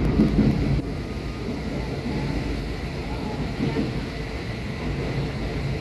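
Inside a moving electric commuter train car: a steady low rumble of wheels on track and running gear. It drops a little in level about a second in.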